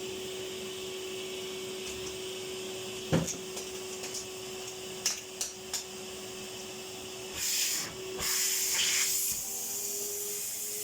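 Vacuum cleaner running with a steady whine while its pipe is blocked. A sharp knock comes about three seconds in and a few clicks follow, then two loud rushes of hissing air come near the end.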